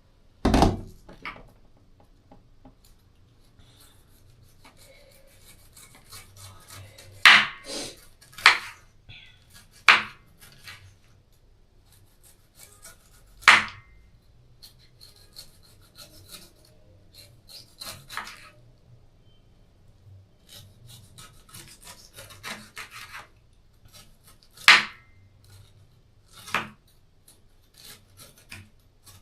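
A knife cutting the peel off a pineapple on a chopping board: a scraping, rasping cut through the tough rind, broken by several sharp knocks of the blade on the board.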